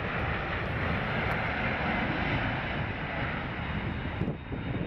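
Jet engines of a three-engine widebody freighter flying low on final approach with its landing gear down: a steady jet roar with a breathy hiss, which thins out near the end.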